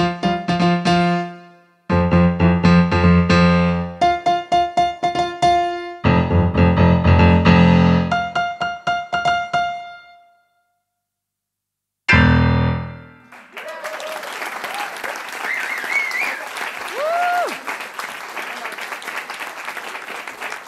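Digital pianos played in short, separate phrases, traded back and forth as in a piano battle, then a pause and one last quick flourish. Audience applause with a few whoops follows.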